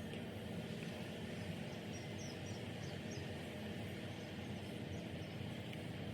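Steady low hum with an even hiss, with a few faint high chirps about two to three seconds in.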